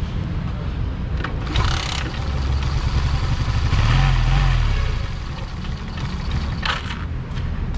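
Suzuki Smash 115's single-cylinder four-stroke engine running, revved briefly about four seconds in, with a couple of short clatters or scrapes. No knocking is heard: the compression release has been taken off the camshaft, which the mechanic says has cured its knock.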